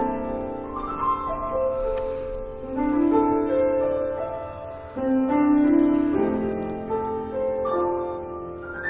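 A keyboard instrument playing a slow, calm classical piece in held chords that change about once a second.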